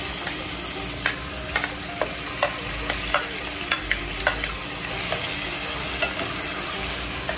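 Grated bottle gourd sizzling as it fries in hot ghee in a nonstick saucepan while a spatula stirs it. A run of sharp spatula taps, about two a second, comes in the first half.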